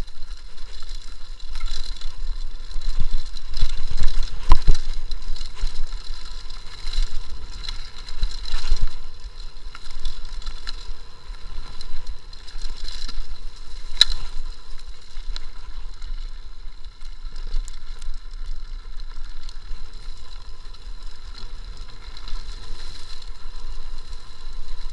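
Mountain bike descending a dirt forest trail at speed: wind buffeting the microphone, with the uneven rumble and rattle of the bike over the ground. There are heavier jolts around four and eight seconds in and a sharp knock near the middle.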